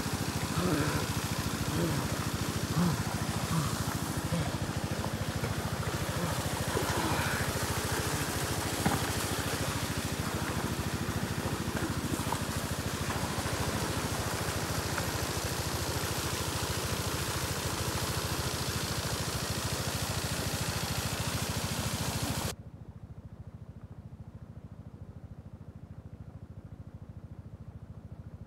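A steady engine drone, which cuts off suddenly about three-quarters of the way through and leaves a quieter steady hum.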